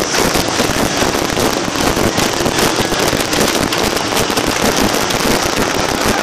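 A large group playing djembes by hand all at once, a dense, unbroken mass of overlapping drum strokes.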